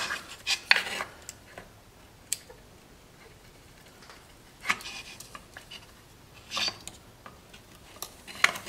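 Flat screwdriver prying at a stubborn sealed plastic electrical connector on a glow plug controller: a handful of sharp clicks and short scrapes, with quiet gaps between. The connector will not release, held by squeeze tabs on both sides.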